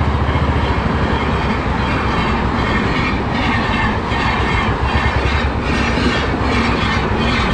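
Motorcycle engine running steadily while riding, with wind noise. Through the middle there is a rhythmic clatter.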